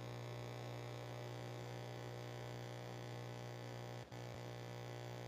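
Faint, steady electrical hum with a buzzy row of overtones, dropping out briefly about four seconds in.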